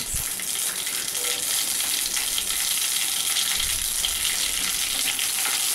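Mustard seeds spluttering in hot oil in a wok: a steady sizzle with fine crackling.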